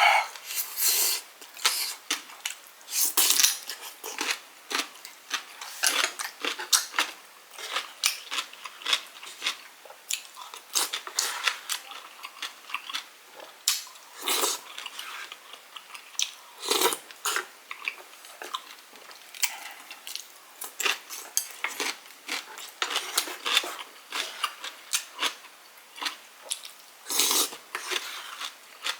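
Utensils clinking and scraping against a bowl, with close-up chewing: eating rice cake soup (tteokguk). The clicks come irregularly.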